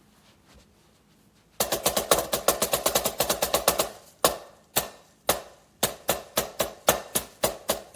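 Drumsticks striking a silicone practice drum pad, starting about a second and a half in: fast runs of about nine strokes a second, a slower stretch of single strokes about halfway, then fast again.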